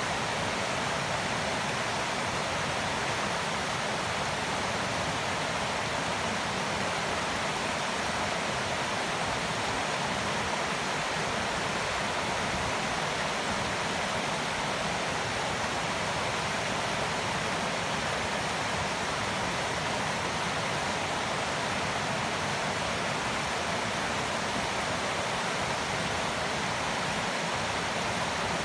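Steady rush of flowing water, an even unbroken hiss that does not change in level.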